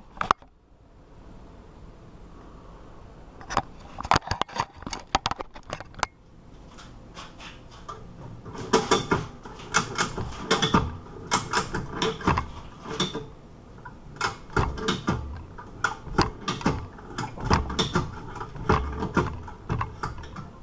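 Ratchet strap being cranked tight on bolt cutter handles, its pawl clicking in short runs, loading the cutter jaws against a lock shackle. A few clicks come about 3.5 s in, then repeated runs of clicks from about 9 s on.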